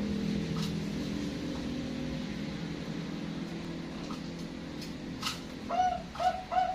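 A low, steady hum of several pitches that slowly fades; near the end a male Bangkok zebra dove (perkutut) begins its song with three quick coo notes.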